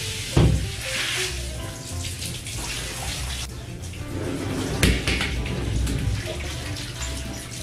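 Garden hose spraying water onto a tiled floor, splashing and running steadily. Two sharp knocks, about half a second and five seconds in.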